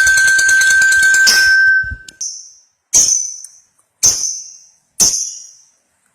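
Lovebird chattering in a long continuous trill that breaks off about two seconds in, followed by three short sharp chirps about a second apart.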